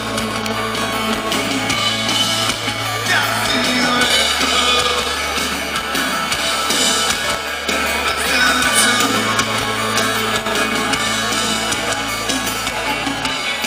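Live rock band playing: drum kit with cymbals and electric guitar over a low bass line that changes note every four or five seconds.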